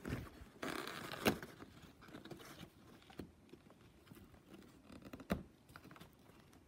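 Small plastic Playmobil toy pieces and cardboard being handled close to the microphone: light rustling and scratching with small clicks, and a sharper click about a second in and again about five seconds in.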